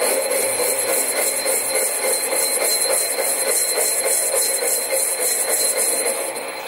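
Sieg SC4 metal lathe turning a cast-iron model flywheel while the tool takes a cut, a steady hissing cutting noise with a thin high whine over the running machine. The cutting noise drops away near the end.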